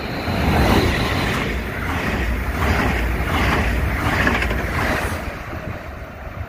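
NS double-deck electric passenger train passing close by through a station at speed: a dense rushing rumble of wheels on rails, easing a little near the end.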